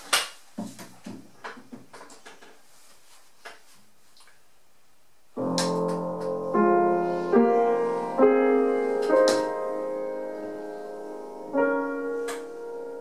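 A handful of sharp knocks and clicks, then about five seconds in an upright piano starts playing slow, sustained chords that change every second or so.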